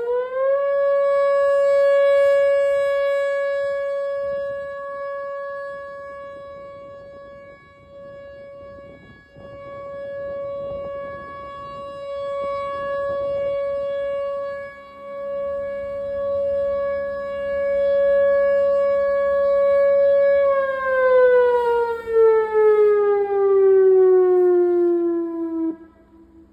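Whelen Vortex outdoor warning siren sounding a test wail: it finishes rising to pitch just after the start and holds one steady tone while growing louder and fainter in turn. About twenty seconds in it winds down, sliding steadily lower in pitch until it dies away near the end.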